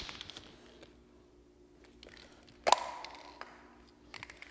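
Aerosol spray paint can being handled: a last rattle of its mixing ball at the start. About two and a half seconds in comes a single sharp snap with a short ringing tail, as the plastic cap comes off the can. A few quick rattles follow near the end.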